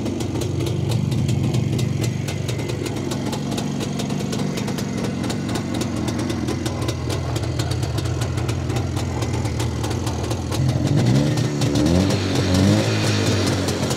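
Classic Jawa 350 two-stroke twin motorcycle engine idling steadily, freshly kick-started. A couple of throttle blips about eleven and twelve seconds in briefly raise its pitch.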